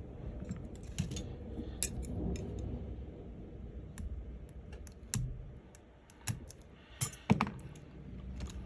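Small repair tools clicking and tapping irregularly on the metal parts of an opened iPhone 13 Pro, with a few sharper clicks near the middle and end.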